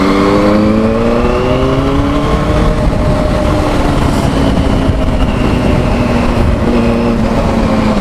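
Benelli 600i's inline-four engine under way. Its pitch rises steadily over the first two to three seconds as it accelerates, then holds and eases off slightly, over a steady low rumble.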